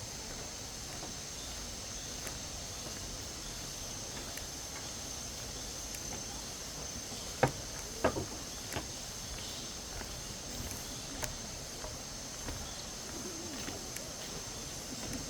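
Steady high-pitched insect drone of a tropical forest, with a few sharp knocks about halfway through.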